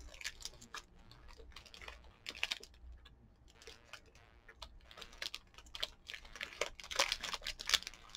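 Plastic wrapper of a Feastables peanut butter chocolate snack bar crinkling and crackling as fingers handle it, in irregular spurts of small crackles that grow busier near the end.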